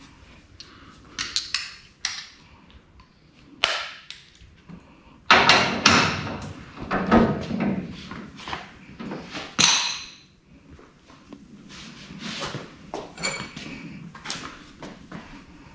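Steel hand tools clinking and knocking as a 3/4-inch socket wrench is fitted and pulled on to loosen a bolt on a race car's front suspension. There are several sharp metal knocks at irregular intervals and lighter clatter between them.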